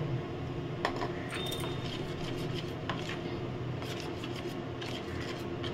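Dry bread crumbs rustling and being scraped about in a dish, with a few light clicks, over a steady low hum.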